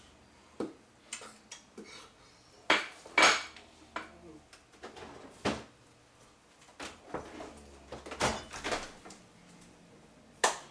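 Kitchen clatter: irregular clacks and knocks of a plastic food container and other kitchenware being handled, with a refrigerator door opened and shut.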